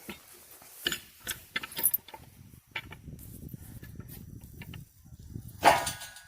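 Handling noise: a few sharp clicks and knocks about a second in, then a low rustle, and a louder knock with a scrape near the end.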